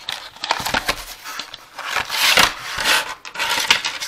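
Packaging rustling and crinkling as a newly unboxed item is handled, with scattered sharp clicks; the rustle is loudest about halfway through.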